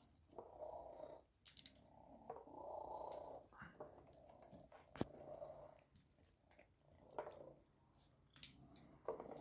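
Domestic cat purring close by, in long, repeated breath cycles, with a few faint clicks and one sharper click about halfway through.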